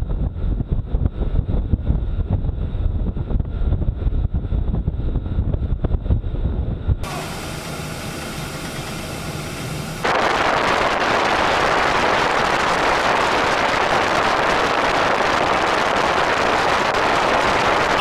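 Wind buffeting the microphone over the churning wake of an Arleigh Burke-class destroyer turning hard at speed, a gusty low rumble. After a cut about seven seconds in the sound is quieter, and from about ten seconds in a loud, steady hiss of rushing water and wind sets in as the bow drives through the sea.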